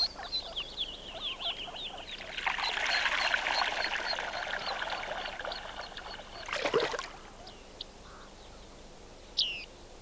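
Water splashing as a waterbird bathes at the surface, with a bird giving a fast run of short high notes, each falling in pitch, and a louder splash about seven seconds in. A single short high call comes near the end.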